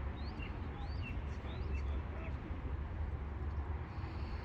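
Birds chirping: a quick string of short, high rising and falling chirps in the first half, over a steady low background rumble.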